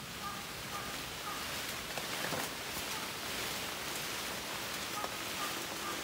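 Leaves and branches rustling and crackling as someone climbs up a tree, over a steady hiss, busiest a couple of seconds in. Faint short high chirps sound now and then.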